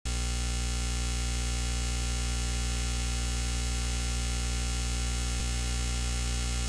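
Steady electrical mains hum with constant hiss and static, unchanging throughout; no music or voices.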